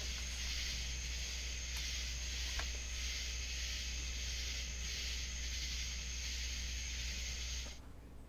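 A steady high hiss over a low, even hum. Both cut off suddenly near the end.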